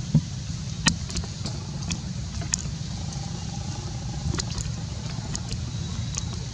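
Steady low background rumble with scattered sharp clicks and ticks; the loudest are a thump just after the start and a sharp click just under a second in.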